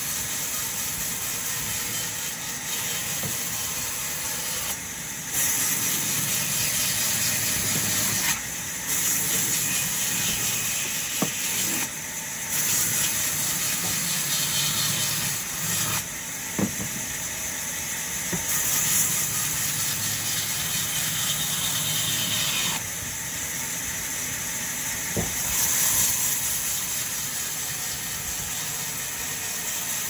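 Vertical band saw running and cutting through logs, a steady noise that grows louder in stretches of a few seconds as logs are pushed through the blade, with a few sharp knocks of wood on the table.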